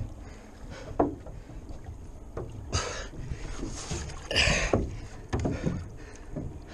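Lake water sloshing and splashing against the hull of a capsized Sunfish sailboat, with a knock about a second in and two louder splashes about three and four and a half seconds in.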